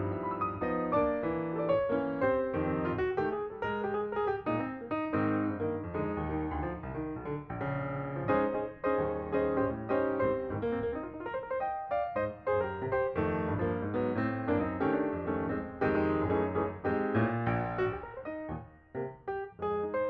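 Background music played on piano, many quick notes over a steady accompaniment.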